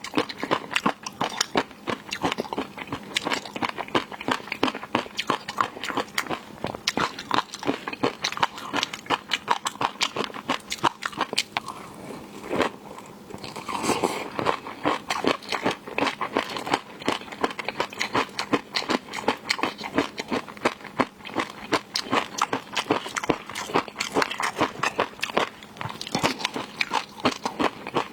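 A person biting and chewing seafood close to the microphone: a steady run of fast crunching clicks, several a second.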